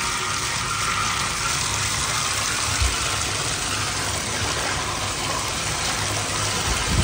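Water gushing steadily from a tap into a bathtub and churning over its floor, rinsing suds and grime toward the drain.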